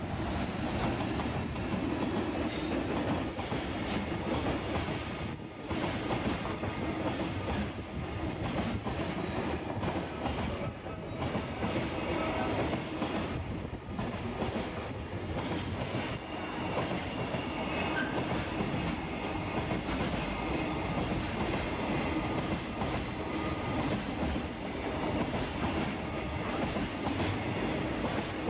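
Freight train's wagons rolling past with a steady rumble and repeated clickety-clack of wheels over rail joints.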